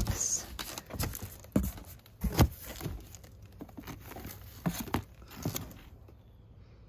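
Cardboard box flaps and Halloween decorations being rummaged through by hand: rustling and crinkling with scattered light knocks, the loudest about two and a half seconds in, growing quieter toward the end.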